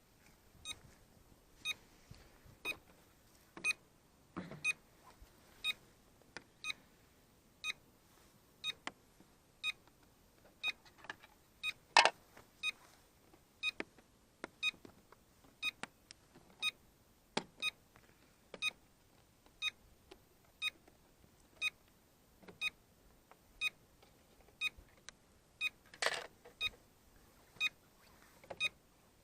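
Short electronic beep repeating about once a second, steady and even. A louder knock sounds about twelve seconds in and another near twenty-six seconds.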